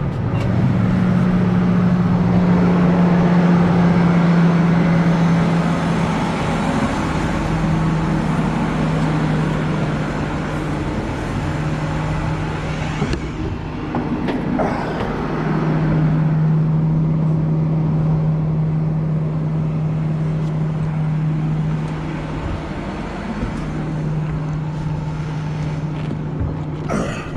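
Tractor engine running steadily, its pitch shifting a few times as the engine speed changes, with a couple of short knocks about halfway through.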